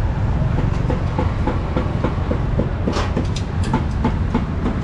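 A steady low mechanical rumble with an even clatter of about five knocks a second, and a few sharper clicks about three seconds in.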